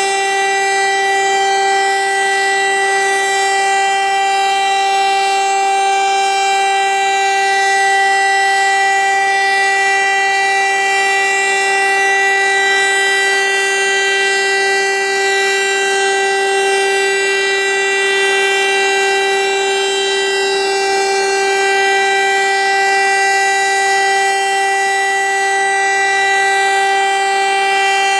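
VEM DS 977 electric motor-driven rotary siren running at full speed and holding a single steady tone with strong overtones, without rising or falling. This is the continuous test tone of a siren test.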